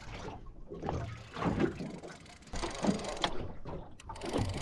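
Water lapping and slapping against the hull of a small aluminium boat, with wind on the microphone and a few short knocks.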